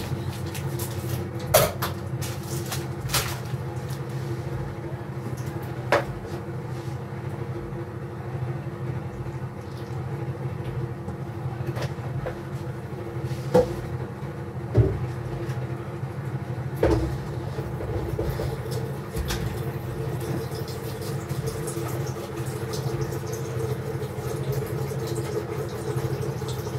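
A steady droning hum with about half a dozen sharp knocks and clicks of pots, utensils and cupboard doors being handled.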